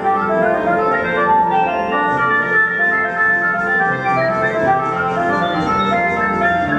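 Organ-like electronic keyboard music: a melody of held notes.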